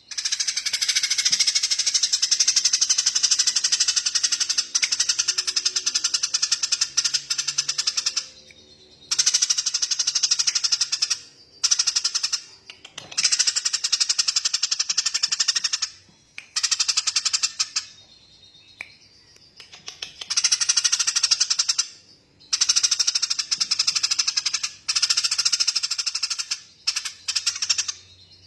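Songbird giving long, very rapid machine-gun trills, high-pitched, each run lasting from one to several seconds with short pauses between; the first run is the longest, about eight seconds.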